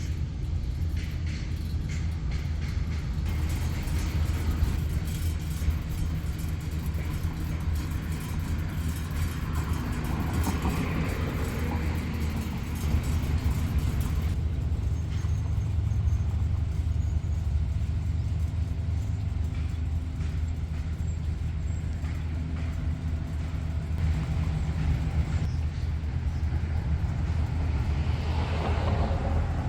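A steady low mechanical hum, with a rushing noise that swells and fades about ten seconds in and again near the end.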